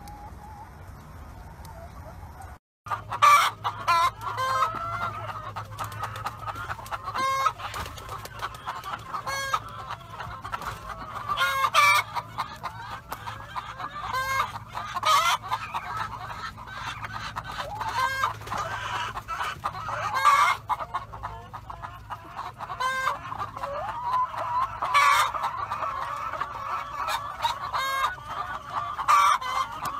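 A large flock of brown laying hens clucking and calling over one another, with frequent short, sharp squawks. The sound is quieter for the first few seconds, drops out briefly, then comes back louder.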